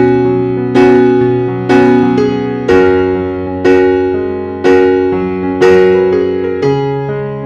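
Background music played on a piano-like keyboard: slow chords, a new one struck about once a second and left to fade.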